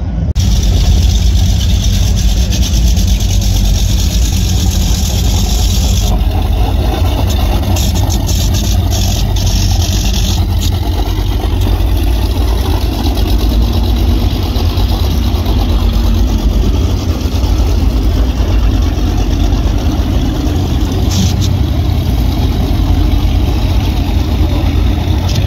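Offshore performance powerboats' inboard engines rumbling at low speed through the channel: a loud, steady, deep rumble.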